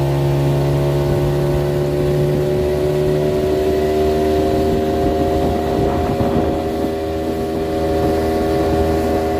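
Two-stroke outboard motor on an inflatable dinghy running steadily under way at a constant speed.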